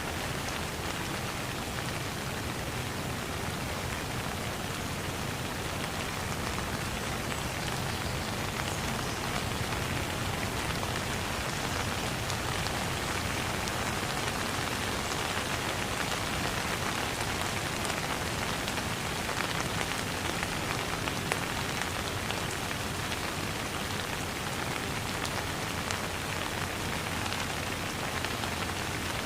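Steady rain falling and pattering on surfaces, an even hiss with fine scattered drop ticks.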